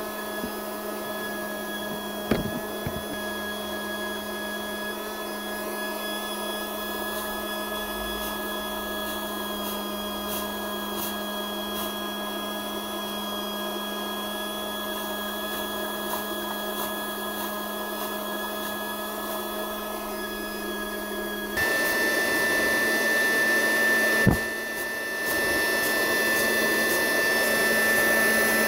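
The small air blower and electric fluid pump of a homemade fog machine running steadily: a constant motor hum with a whoosh of air. The sound steps up louder about three-quarters of the way through, with a short knock a couple of seconds in and another soon after the step.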